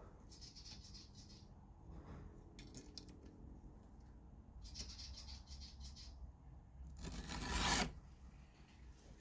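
Round file rasping across a chainsaw chain's cutter tooth in two light strokes, with a few light clicks between them. About seven seconds in comes a louder rushing scrape that lasts just under a second.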